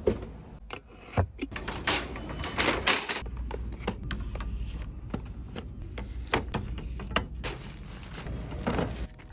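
Shopping-cart handling noise: a red plastic cart rattling, with packaged items in it knocking and rustling in a string of irregular clicks and knocks, over a low steady hum that comes in about three seconds in.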